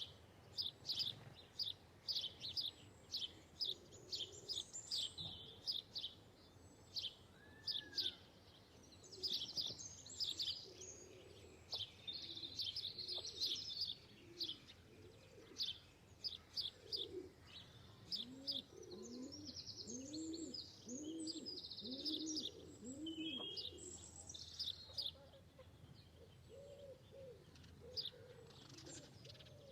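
Birds chirping in quick high bursts throughout, joined in the second half by a run of low, rising-and-falling calls repeated about twice a second.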